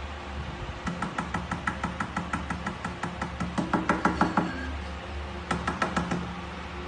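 A quick run of light clicks or taps, about five a second, lasting a few seconds, then a second shorter run near the end, over a steady low hum.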